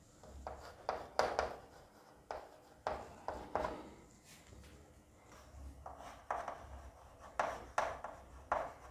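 Chalk writing on a blackboard: a series of short, faint, irregular scratches and taps as letters are written, with a pause near the middle.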